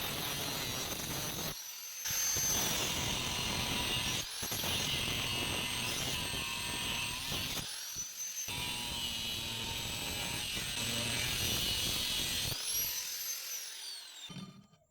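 Angle grinder cutting metal: a high motor whine over a gritty grinding hiss, broken by several short cuts. Near the end the motor spins up once more and then winds down and stops.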